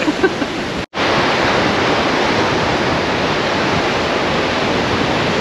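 Small waves washing steadily onto a sandy beach and rocks, an even surf hiss, following a brief laugh and a short cut to silence about a second in.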